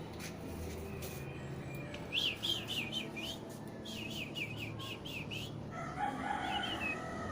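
Baby swiftlet chirping: two quick runs of about five short, high chirps each, followed near the end by a lower, longer call.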